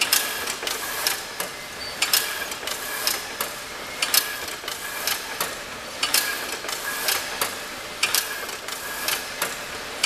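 Crimped-wire mesh weaving machine running, a rhythmic metallic clatter of sharp clacks that bunch into a louder cluster about every two seconds as it weaves wire screen mesh.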